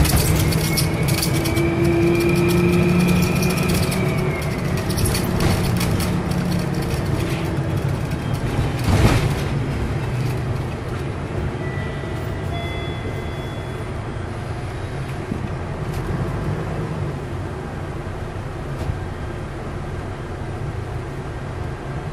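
Diesel bus engine running under load with a loud, high-pitched turbocharger whistle that rises slightly and then falls away about four seconds in. A sharp knock comes about nine seconds in, and the engine then runs on more quietly.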